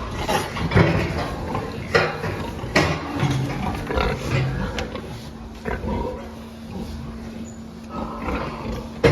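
Pigs grunting and squealing in short, irregular bursts, over a faint steady hum.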